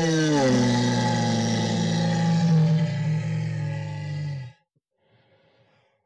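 A monster groan performed with a human voice: one long, low call already under way, which drops in pitch about half a second in, holds there and dies away about four and a half seconds in.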